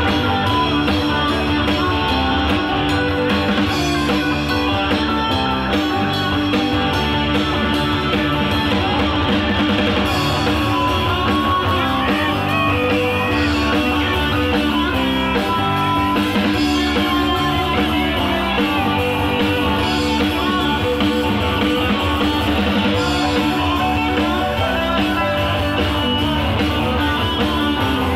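A rock band playing live: electric guitars over drums, loud and continuous.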